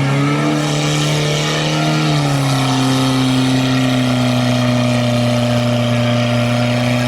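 UAZ off-road vehicle's engine running hard under load, a steady held note that drops slightly in pitch about two seconds in.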